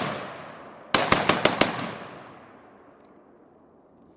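Rapid string of about six gunshots from a 5.56 firearm, fired in well under a second about a second in, followed by a long fading echo.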